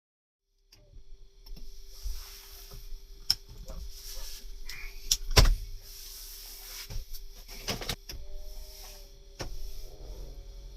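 A series of sharp knocks and clicks, the loudest about halfway through, over a faint steady hum.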